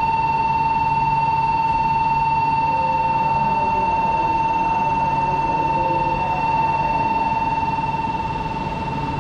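Station platform warning buzzer sounding one steady, unbroken high tone as an E4 series MAX Toki Shinkansen pulls slowly into the platform.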